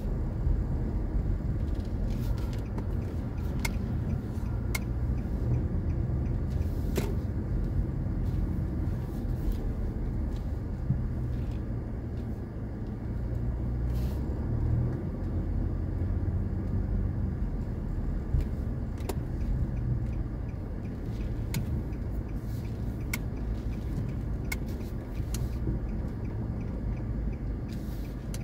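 A car's engine and tyres making a steady low rumble, heard from inside the cabin as it moves slowly. Scattered light clicks sound over it.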